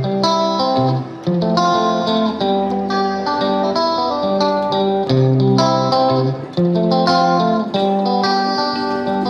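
Instrumental background music led by plucked guitar, with held notes and chords changing about once a second.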